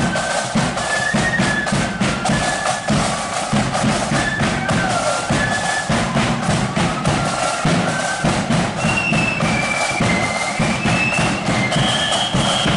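Marching flute band playing a tune: high flutes carry the melody over a steady beat from bass and side drums, the tune climbing higher in the last few seconds.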